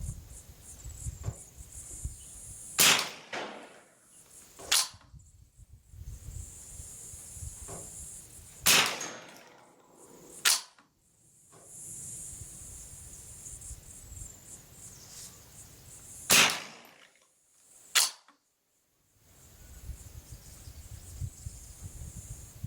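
Six single shots from a Savage A22R bolt-action rifle in .22 LR, each a sharp crack, coming in three pairs about two seconds apart, over a steady high hiss.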